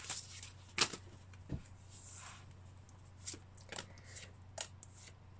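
Pokémon trading cards flipped through by hand, one after another: soft, irregular snaps and swishes as each card slides off the stack against the next.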